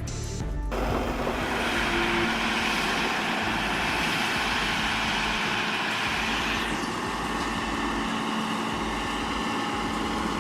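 Heavy truck engine running steadily under road and traffic noise, cutting in abruptly just under a second in.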